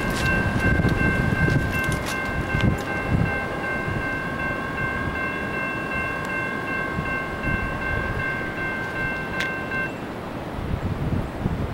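CSX diesel locomotive's multi-chime air horn sounding one long, steady chord as the train approaches. The horn cuts off about ten seconds in, leaving a low rumble.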